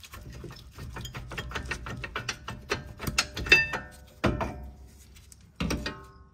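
Jeep Grand Cherokee rear brake caliper being worked off the rotor and its bracket by hand: a rapid run of metal clicks and rattles, then ringing metal clanks about three and a half, four and five and a half seconds in.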